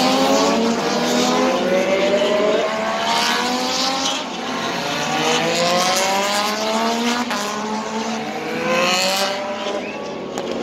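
Several Moto2 racing motorcycles with Triumph 765 cc three-cylinder engines accelerating along the straight one after another. Their engine notes rise again and again through the gears as they pass.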